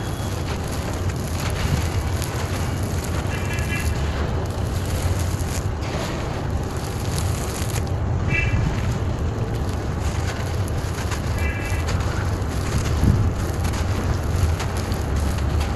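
Dry, gritty clay-soil lumps crunching and crumbling in a bare hand, the crumbs and grit pattering down onto loose earth, over a steady low rumble. A few brief high chirps come through three times.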